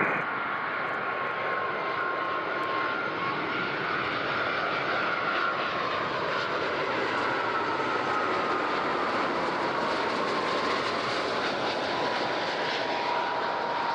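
Airbus A330-300's twin Rolls-Royce Trent 700 turbofans on final approach, a steady jet noise with a fan whine that slowly falls in pitch as the airliner comes closer.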